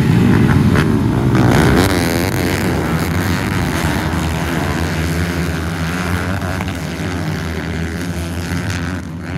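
A pack of four-stroke motocross bikes revving hard as they pass close by and race away, the engines rising and falling in pitch as the riders shift, the noise fading steadily as they pull off.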